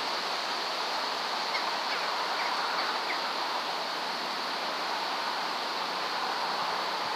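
Steady outdoor background rush with a few faint bird chirps around two to three seconds in.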